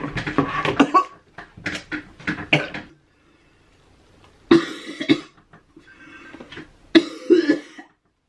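A man coughing and gagging on a mouthful of whole rhinoceros beetles. He then retches into a plastic bucket in two heaving bouts, about four and a half and seven seconds in.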